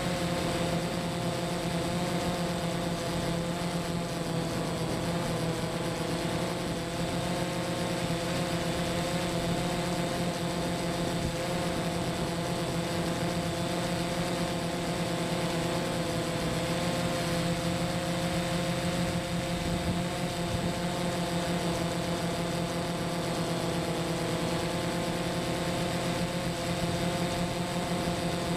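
Quadcopter's electric motors and propellers running in flight, heard from its onboard camera: a steady whine of several tones over a hiss, the pitch wavering slightly.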